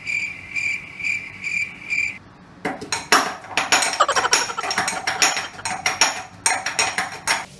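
Cricket chirping, about two and a half chirps a second, for the first two seconds. Then, from about three seconds in, a rapid clatter and clanking of steel utensils being scrubbed and knocked together at a kitchen sink.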